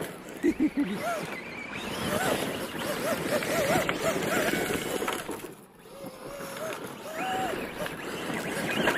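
Electric RC stunt truck driving hard across loose gravel, its motor whine rising and falling with the throttle over the crunch of the tyres. It eases off briefly a little past the middle, then picks up again.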